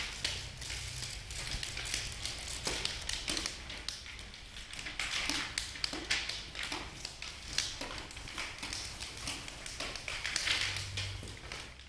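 Several people handling sheets of paper at once, crumpling and rustling them in a dense, irregular run of crackles and taps.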